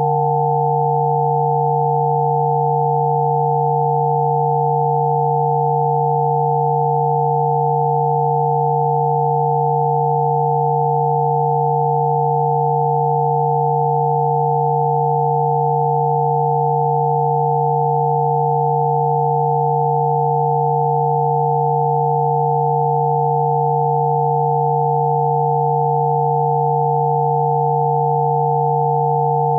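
Rife frequency tones: several steady electronic sine tones sounding together without change, a low tone with higher tones above it.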